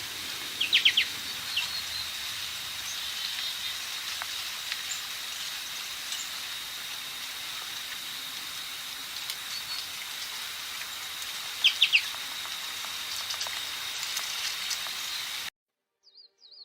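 Bird calls, each a quick cluster of three or four short downward-sweeping notes, heard about a second in and again near twelve seconds, over a steady high hiss with a continuous high thin tone. The sound cuts off abruptly about fifteen seconds in, and a different bird's rapid chirps begin just before the end.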